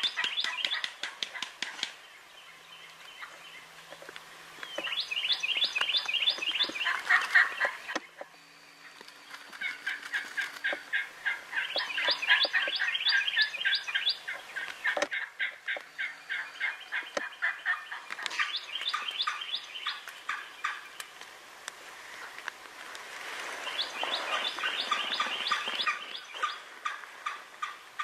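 Wild turkey gobbling: fast rattling calls that come in several bouts a few seconds apart, with quieter gaps between them.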